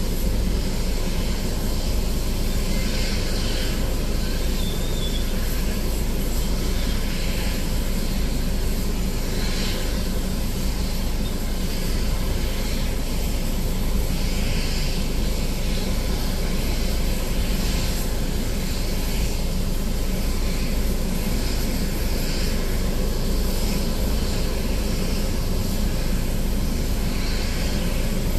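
Steady engine rumble with a strong low drone and a constant rushing hiss, heard from inside a vehicle cab on an airport apron.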